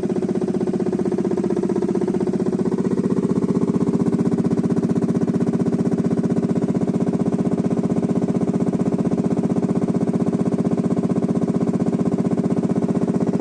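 Compressor-powered blast-hole drilling rig running steadily, with a fast, even pulsing throughout that grows slightly louder about three seconds in.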